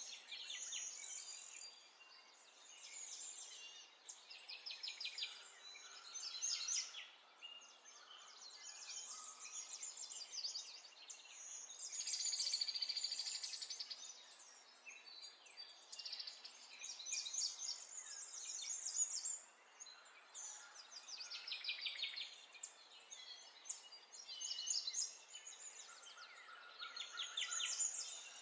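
Songbirds singing in short, rapid trilled phrases, one after another, over a faint steady hiss.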